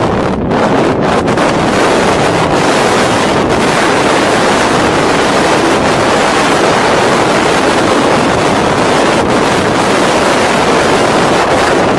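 Storm wind buffeting the microphone over heavy breaking seas: a loud, steady rush of wind and surf around a small fishing boat.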